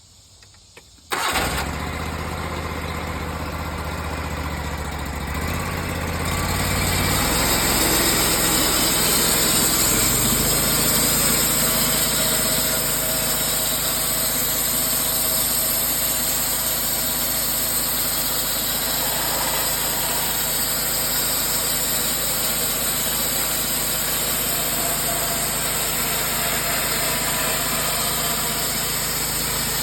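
The portable sawmill's Subaru Robin gas engine, about 22 horsepower, starts abruptly about a second in. Its speed is raised in two steps over the next several seconds, and it then runs steadily at high speed.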